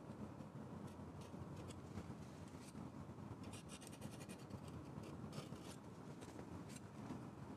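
Faint, short scratchy strokes of a palette knife dragged over oil paint on a primed aluminium panel, with a quick run of strokes around the middle. Under it runs a steady low room hum.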